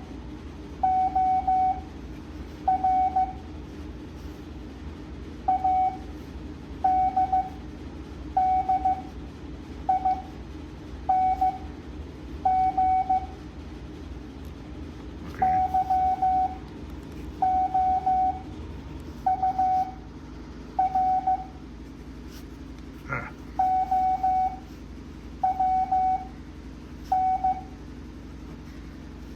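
Morse code practice tone at 7.5 words a minute: one steady beep keyed into dots and dashes, one character at a time, with pauses of about a second between characters. A low hum lies underneath, and there is a single knock about 23 seconds in.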